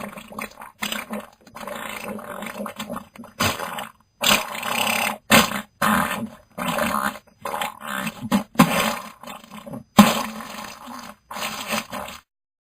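An animal growling and roaring in a long run of rough bursts with short gaps between them. The bursts stop just before the end.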